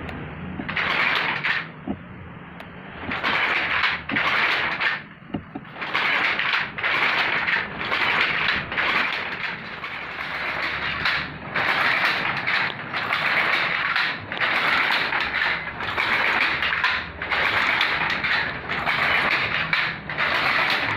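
Wooden hand loom being worked: repeated rustling, scraping strokes of its parts and threads, about one a second.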